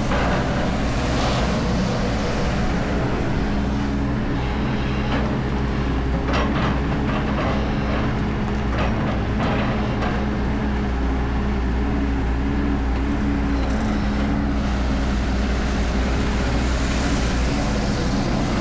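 A heavy machine's engine running steadily, with a few brief clanks about midway.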